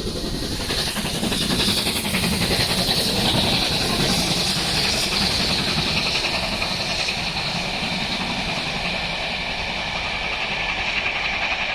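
Steady loud hissing noise with a faint, rapid, even texture in it.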